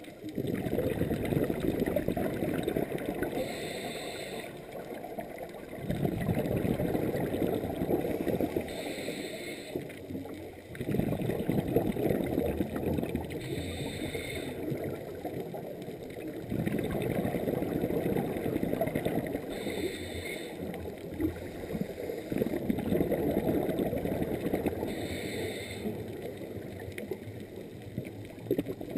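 Scuba diver breathing through a regulator underwater: a short hiss of inhalation about every five seconds, each followed by a longer burble of exhaled bubbles.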